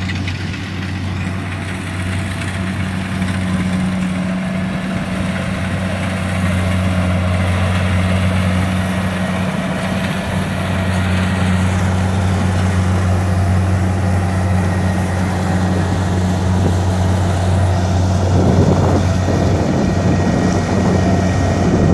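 Diesel engine of a 105X rice combine harvester running steadily as it cuts rice, a constant low drone that grows gradually louder as the machine draws nearer.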